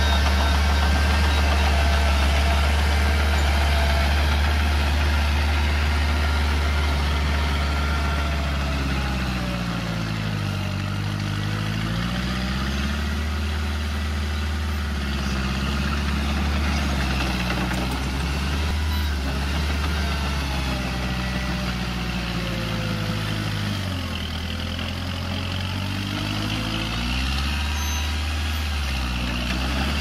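Heavy diesel engine of a bulldozer running steadily, its revs dipping and climbing back twice, about ten seconds in and again near the end, as the load on the machine changes.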